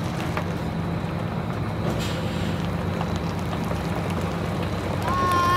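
GM Scenicruiser bus's two-stroke Detroit Diesel engine idling steadily.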